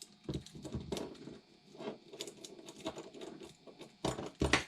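Small metal clicks and rattles of an old pair of handcuffs as a handcuff key is fitted and turned in the lock. A quicker, louder run of clicks comes near the end.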